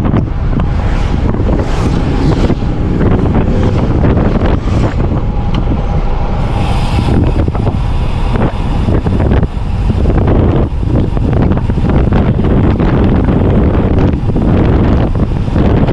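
Heavy wind buffeting the camera microphone on a fast road-bike descent, a loud, steady low rush that gusts and flutters throughout.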